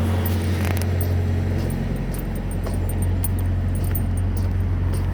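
A heavy truck's diesel engine idling steadily, a low even hum, with scattered light clicks over it.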